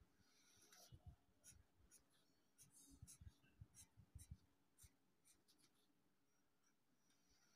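Faint scratching of a felt-tip sketch pen drawing short strokes on paper over a clipboard, with light taps of the pen. The strokes come thickest in the first five seconds and thin out after that.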